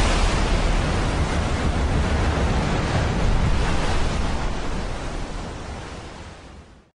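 Stormy sea ambience: surf and wind in a steady rush of noise, fading out over the last two seconds or so.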